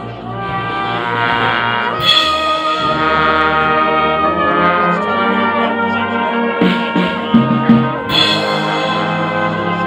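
Brass band playing sustained chords with a drum kit, trombones and trumpets prominent. A cymbal crash about two seconds in and another about eight seconds in, with a run of drum strokes just before the second crash.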